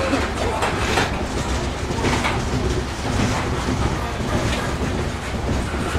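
Coal cars of a freight train rolling past: a steady rumble of steel wheels on rail, with sharp clicks about once a second as wheels pass over rail joints.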